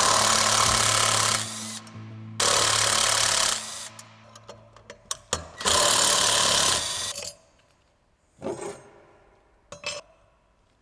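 Handheld power tool run in three short bursts of about a second each, driving the rear sprocket's bolts, with small clicks and knocks of the parts between the runs.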